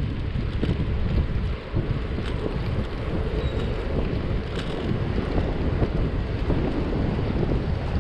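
Wind buffeting the microphone of a camera riding on a moving bicycle: a steady low rumble with a few faint ticks.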